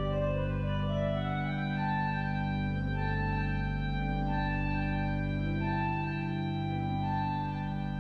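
Pipe organ playing slow, sustained chords: low notes held steady underneath while an upper line moves from note to note about once a second.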